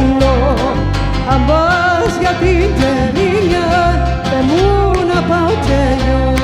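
Traditional Cypriot folk music played by laouto, viola and bass: a sliding, ornamented melody line over plucked laouto and a steady repeating bass line.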